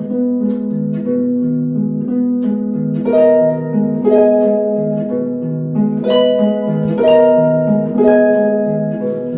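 Harp playing alone: plucked chords about once a second over a low two-note figure that rocks back and forth.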